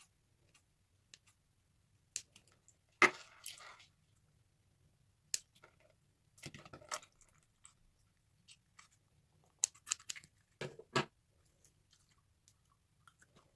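A stress ball being cut open and handled: scattered sharp snips and clicks with short squelchy, crackling bursts, the loudest about three seconds in and again around ten to eleven seconds.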